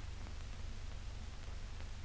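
Steady hiss and low hum of an old newsreel soundtrack, with a couple of faint clicks.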